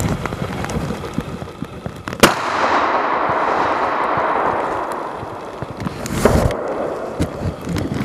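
A single shotgun shot about two seconds in, a sharp crack that rolls away through the forest in a long echo lasting about three seconds. A second, shorter burst of noise follows about six seconds in.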